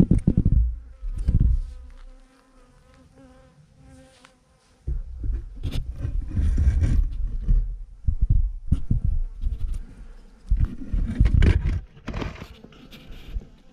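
Swarm of honeybees clustered on a branch, buzzing with a steady hum. Several loud, low rumbling bursts close to the microphone break in near the start, in the middle and near the end.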